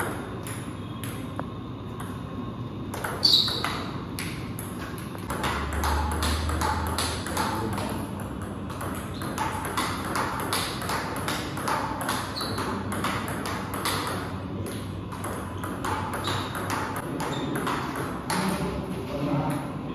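Table tennis rallies: the ball clicking quickly back and forth off the rubber bats and the table, with one much louder click about three seconds in.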